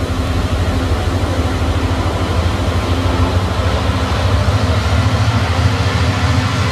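Steady, low, rapidly pulsing hum of a time machine running, a science-fiction sound effect.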